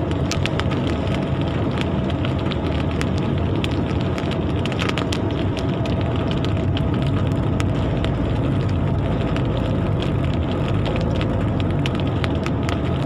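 Steady rain, with many individual drops ticking sharply against a hard surface.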